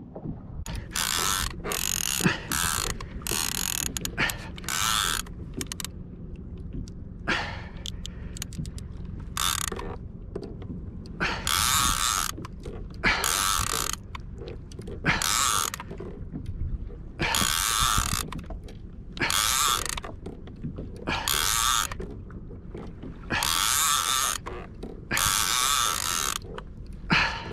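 A fishing reel whirring in repeated bursts of half a second to a second and a half, a second or two apart, as line runs through it while a fish is being played from the kayak.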